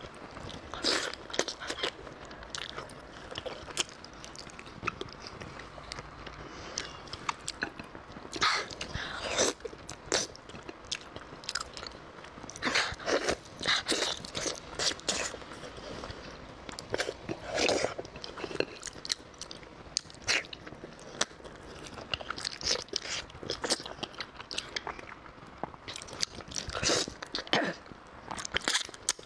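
Close-miked eating: a person biting into and chewing pieces of spicy pork, a quick irregular string of short clicks and smacks.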